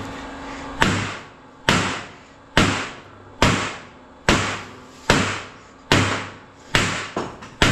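Hammer blows on metal: about nine hard strikes at an even pace of a little over one a second, each ringing briefly, over a faint low steady hum.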